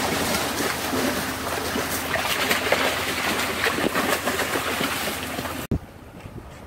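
Water splashing and churning hard at the surface, with many small splashes. Near the end it cuts off abruptly to a quieter, rougher background.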